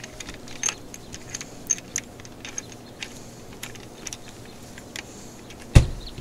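Small metallic clicks and taps as a replacement thumb lock is fitted into an aluminium truck-camper compartment door. Near the end, the door shuts with one loud thump.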